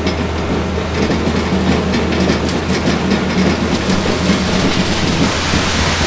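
Ready-mix concrete truck discharging into a concrete pump's hopper: diesel engines running steadily under a gritty wash of wet concrete sliding down the chute.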